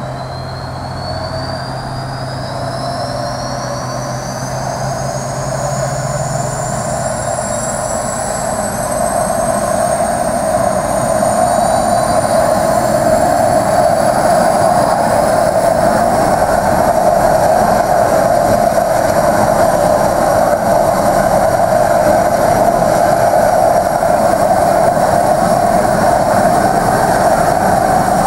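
Let L-410 Turbolet turboprop engine starting up. A whine rises in pitch and grows louder over the first ten seconds or so, then settles into a steady high whine over a rushing noise as the engine reaches idle.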